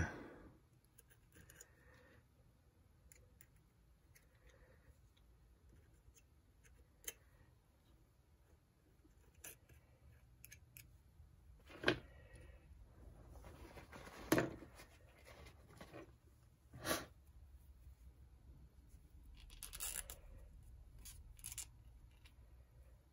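Small hand tools and parts being handled on a vintage reel-to-reel tape deck's metal mechanism: a few sharp clicks spread a few seconds apart, with light scratching and scraping, more of it near the end.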